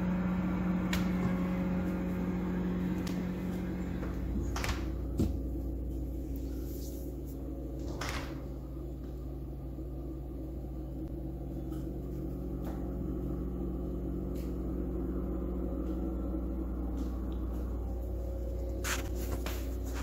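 Frigidaire Professional upright refrigerator and freezer running with a steady low hum made of several constant tones, with a few faint taps.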